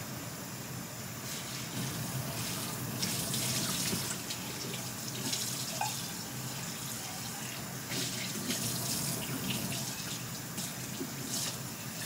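Kitchen tap running into a stainless steel sink as a small pot is rinsed under the stream, with a few light clinks and scrapes of the pot and utensil.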